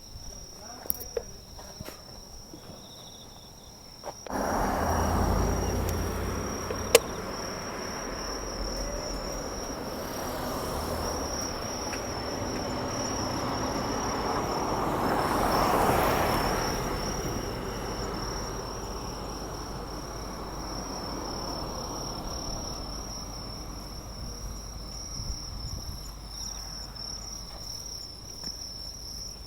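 Insects singing with a steady, high-pitched drone. About four seconds in, a broad rushing noise starts suddenly, swells to a peak around the middle and slowly fades.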